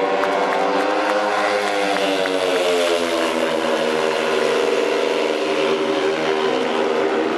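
Four speedway motorcycles, 500cc single-cylinder methanol engines, racing flat out around the track, their engine pitch falling and rising as the riders go through the bends.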